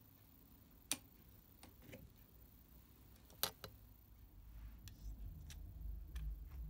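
Faint clicks as an industrial sewing machine is handled during threading: two sharp ones about two and a half seconds apart with a few fainter ticks, then a low rumble of handling in the second half.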